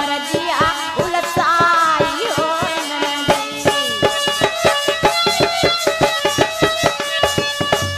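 Instrumental interlude of a sohar folk song, with no singing. Drum and rattle-like percussion keep a quick steady beat throughout. A gliding melody line in the first few seconds gives way to steady held chords.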